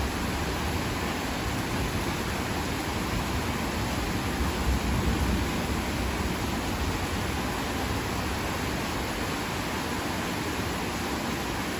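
Heavy rain falling steadily, a dense, even hiss, swelling briefly louder in the low end about five seconds in.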